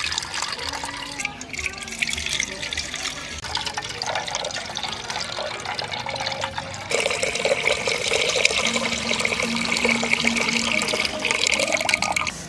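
Milk poured in a thin stream into a metal pot already holding milk: a steady splashing pour, which turns abruptly louder and brighter about seven seconds in.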